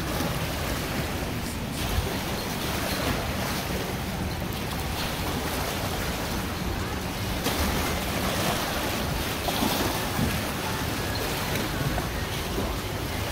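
Small waves lapping and splashing against riprap boulders at the water's edge, with wind noise on the microphone.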